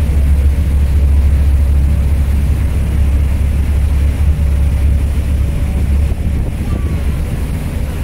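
Steady low rumble of a ferry under way at speed, engine and rushing wake mixed with wind buffeting the microphone on the open deck.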